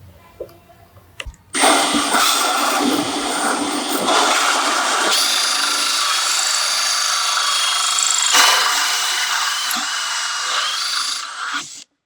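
Wood router running in the newly built router table: it starts about one and a half seconds in and is switched off just before the end. It gives a steady high whine whose pitch shifts slightly a few times.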